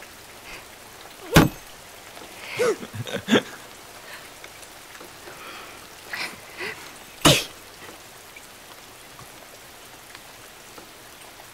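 Two sharp cleaver chops on a wooden cutting board, about six seconds apart, over a steady hiss of rain. Between them a woman makes a few short vocal sounds.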